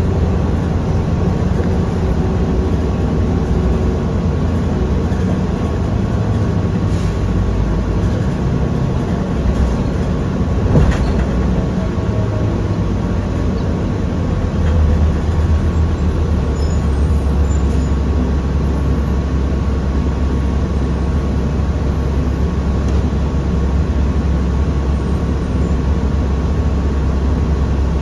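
Interior of a 2008 New Flyer D40LF diesel city bus under way: a steady low rumble of engine and road noise. A single knock comes about eleven seconds in, and the low rumble grows heavier a few seconds later.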